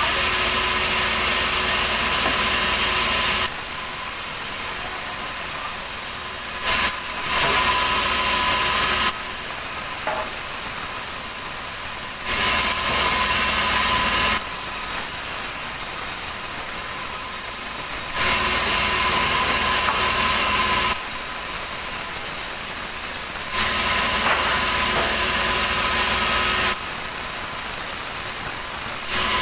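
A large sawmill band saw cuts a heavy ulin (Borneo ironwood) beam in repeated passes. Each cut is a loud stretch of two to three seconds with a strong high hiss, and between cuts the saw runs lower and steadier while the beam is drawn back; this happens about five times.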